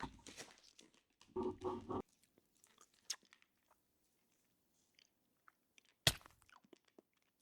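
Faint mouth sounds of a hard Ricola cough drop being sucked and crunched, with scattered sharp clicks of the candy against teeth and one loud crack about six seconds in. A short hum of voice comes about a second and a half in.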